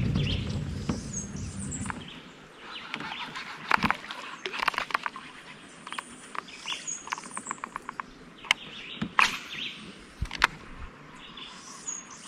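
Birds chirping, with sharp clicks and taps scattered throughout from a fishing rod and reel being handled in a kayak. A low rumble fills the first two seconds.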